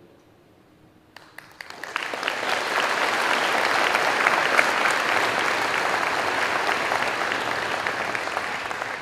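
Audience applauding: a few scattered claps about a second in, quickly swelling into steady applause.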